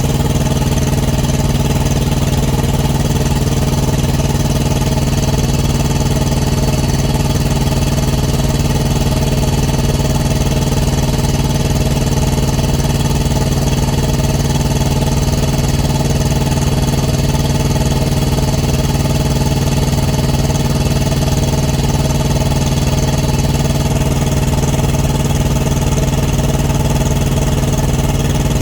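Thermo King TriPac Evolution APU's small diesel engine running steadily after a good start, with a faint high whine that stops about 24 seconds in. It is being watched to see whether it keeps running, as it has been stopping intermittently.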